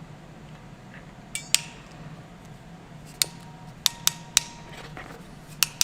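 Sharp, irregular metal clicks from a ratcheting wire crimping tool with quick-change jaws being handled and worked, about eight in all, some with a brief ring.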